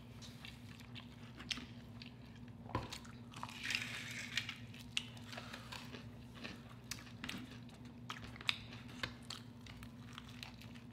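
Close-up eating sounds: chewing and biting into battered fried shrimp, with scattered small crunches and clicks over a faint steady hum.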